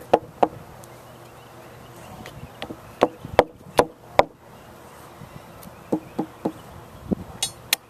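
Hand hammer striking while a 4x6 timber edging board is fastened in place: sharp, separate taps in short runs of two to four blows, with pauses between the runs.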